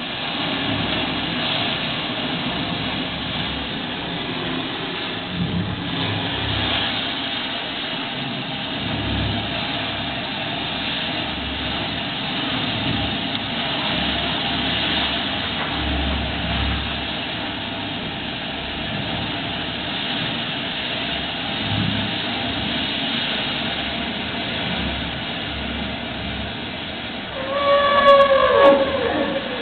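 Whale sound recording: a steady wash of noise, then near the end one loud pitched call with overtones that bends down in pitch, typical of a southern right whale.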